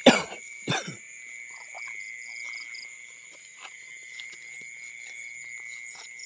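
Night chorus of insects and frogs: steady, high, continuous buzzing, with small repeating chirps. In the first second, two short loud sounds about half a second apart stand out over it.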